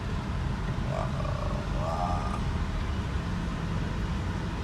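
Car engine running with a steady low rumble as the car is driven slowly, with two brief higher-pitched sounds about one and two seconds in.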